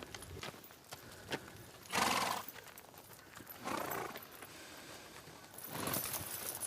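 Horse hooves clip-clopping, with a horse whinnying about two seconds in and again near four seconds.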